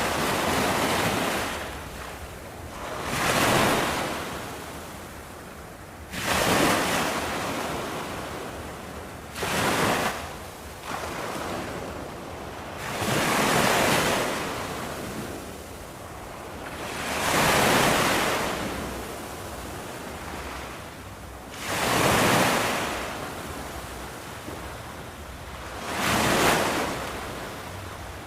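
Ocean waves breaking on a beach, each surge of surf swelling and fading every few seconds, with some wind on the microphone.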